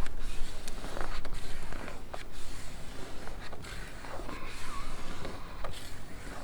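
Irregular scraping and rubbing with small clicks as a vinyl decal and its pre-mask are worked down onto window glass, over a steady low rumble.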